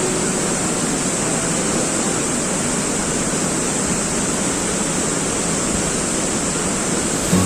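Waterfall pouring: a steady, even rush of falling water with no breaks.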